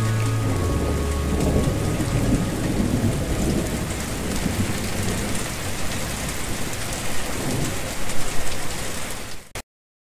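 Steady rain with low thunder, after the last sustained notes of a song die away in the first second or so. The sound cuts off suddenly near the end.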